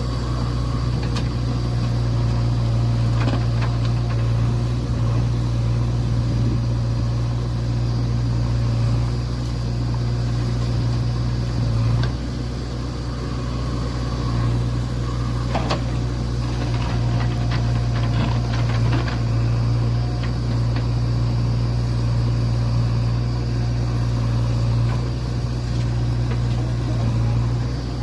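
Heavy diesel engine running steadily at low revs, with a few short sharp clanks around the middle.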